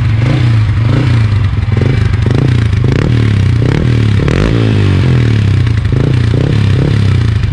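Yamaha Sniper 155's single-cylinder engine running with no air filter fitted, blipped up and down on the throttle in quick repeated revs. It is a test run on a freshly installed Faito racing ignition coil, and the engine runs on it.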